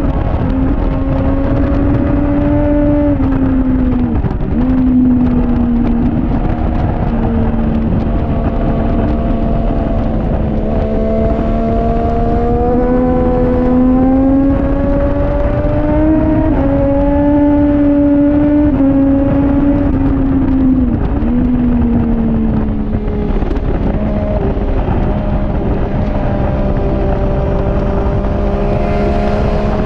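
2014 Triumph Daytona 675R's inline three-cylinder engine running hard on track, its note rising and falling with the throttle and dipping briefly several times at gear changes, over a steady rush of wind noise.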